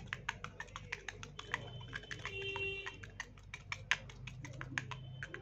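Faint, rapid, irregular clicking and ticking as lighter fuel is squeezed from a plastic bottle's nozzle into the filler opening of a brass flint bullet lighter.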